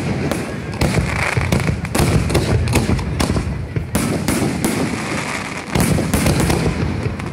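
Fireworks show: aerial fireworks bursting in quick succession, about ten sharp bangs in seven seconds, with a continuous low rumble between them.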